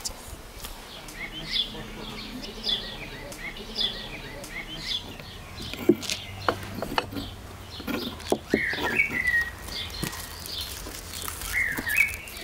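Small birds chirping in quick, repeated calls, with a few sharp clicks and knocks about halfway through.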